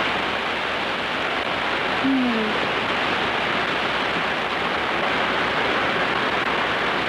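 Steady hiss of a heavy rain downpour, with a brief low sound falling in pitch about two seconds in.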